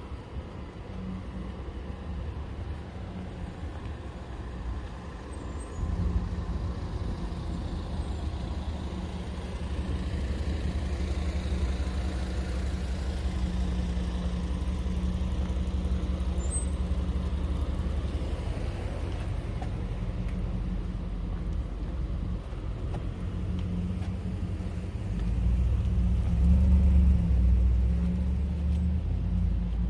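A motor vehicle's engine running close by, a steady low hum that gets louder about six seconds in and again near the end, over faint street noise.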